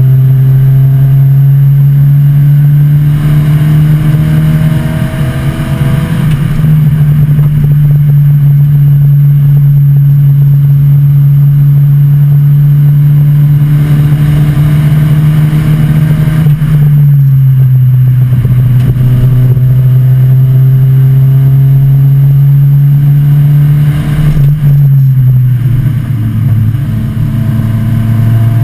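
1986 Volvo 245 race car's engine under power, heard loud from inside the cabin. Its note climbs slowly and drops in pitch twice, about halfway through and again near the end.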